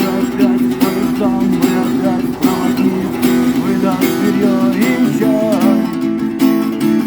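Acoustic guitar strummed in a steady rhythm, playing full chords.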